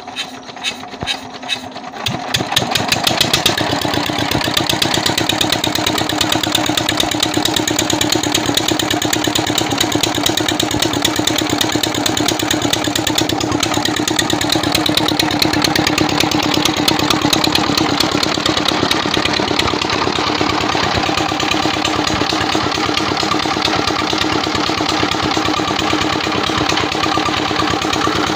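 JD 18 hp single-cylinder diesel engine being started: the first strokes come faster, it catches about two seconds in, then runs steadily with an even, rapid beat.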